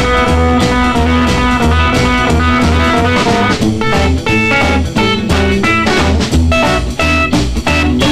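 Rock and roll song in an instrumental stretch without vocals: electric guitar lead over a steady bass beat and drums.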